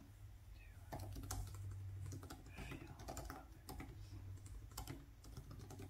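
Fingers typing on a laptop keyboard: a faint, irregular run of quick key clicks.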